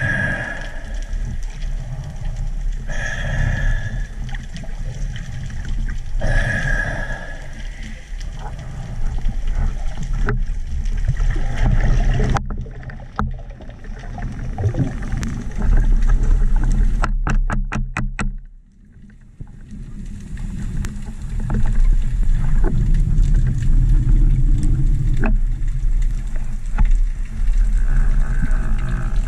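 Underwater noise picked up by a camera mounted on a speargun: a steady low rumble, with scattered sharp knocks and a quick run of clicks about seventeen seconds in.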